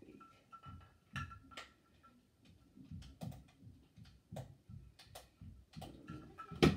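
Irregular small clicks and taps from a string of Christmas lights being handled, with one sharper click near the end.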